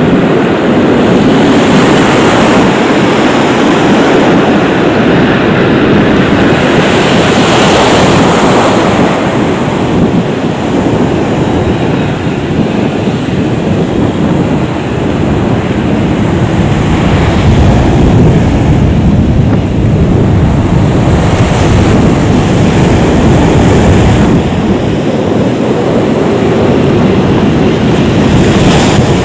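Boeing 737-800's CFM56 jet engines running loud as the airliner rolls down the runway after landing: a steady rushing noise that dips slightly midway.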